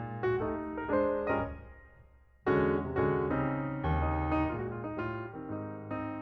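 Background music: a light keyboard melody of struck notes that each fade away, dropping off briefly about two seconds in before picking up again.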